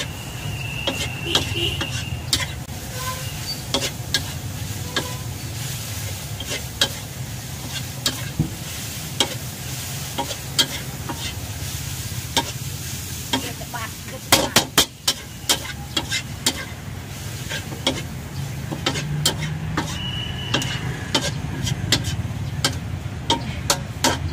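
Metal spatula scraping and clanking against a wok as noodles, cabbage and greens are stir-fried, over a steady sizzle. The clanks come irregularly, with a quick flurry of loud ones about two-thirds of the way through.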